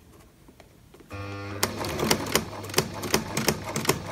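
Pfaff sewing machine starting up about a second in: a steady motor hum, then loud sharp clacks at about three a stitch-second as it sews. The noise is abnormal, and the sewer later traced it to the needle.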